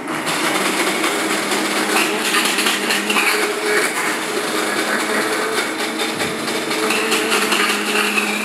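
Hand-held immersion (stick) blender running steadily in a small cup, blending a paste.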